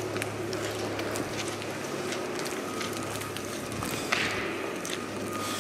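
Footsteps crunching and scuffing on a gritty, debris-covered concrete floor, with a single sharper knock about four seconds in. Underneath runs a steady low drone that the walkers take for a helicopter flying over.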